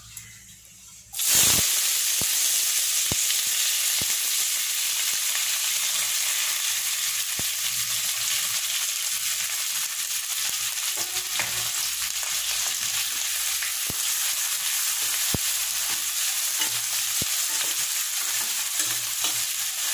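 Chopped onions dropped into hot oil in a kadhai start sizzling suddenly about a second in, then fry with a loud, steady sizzle. A spatula stirs them, with occasional sharp clicks.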